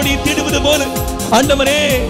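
A man singing a Tamil Christian worship song into a microphone over live band accompaniment with a steady drum beat.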